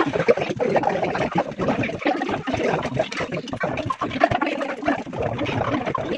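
Indistinct overlapping table chatter with frequent light clinks of spoons and hands on steel plates and dishes during a shared meal.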